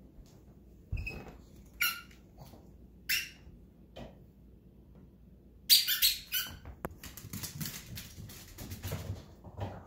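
A pug's short noisy snorts, three of them in the first few seconds, then a loud quick run of clicks and scuffles as it scrambles off and runs across a hardwood floor, claws clicking.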